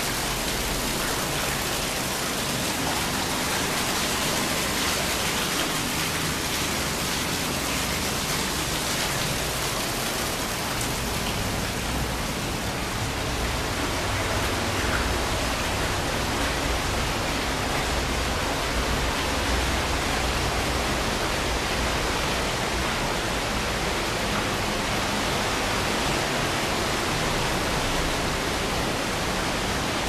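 Water pouring down a sewer waterfall, a steady, even rushing that does not let up.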